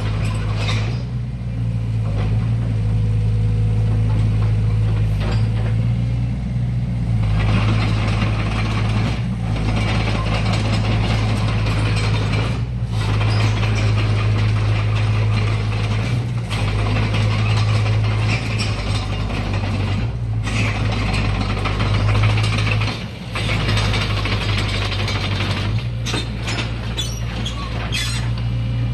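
SANY 60C mini excavator running, its diesel engine giving a steady low hum under a busy mechanical clatter. The clatter is lighter for the first few seconds and lets up briefly every few seconds.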